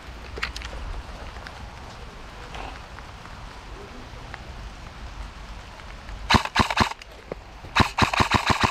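Airsoft gunfire: a quiet outdoor lull, then a short burst of rapid sharp cracks about six seconds in and a second string of quick shots near the end.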